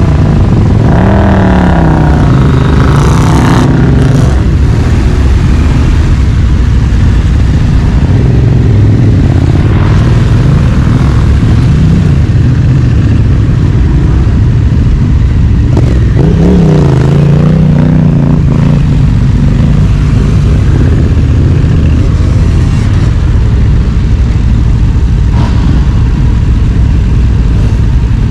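Honda Africa Twin CRF1100 DCT's parallel-twin engine running under load off-road. It revs up in short surges about a second in and again around sixteen seconds in, between stretches of steadier running, with a few knocks along the way.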